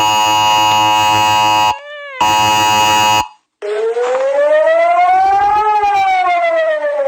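Homemade Emergency Alert System alarm sounds. First a steady, harsh multi-tone alarm chord, cut twice by a brief warbling tone and then a short silence. Then, from about three and a half seconds in, a siren tone slowly rises and falls once, like a civil defense siren wail.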